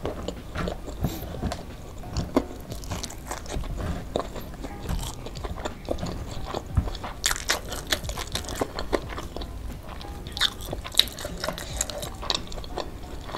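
Close-up eating sounds: chewing and crunching of fried chicken and rice, with fingers working the rice and tearing the chicken. Irregular crackles and clicks, busiest about seven seconds in and again near the end.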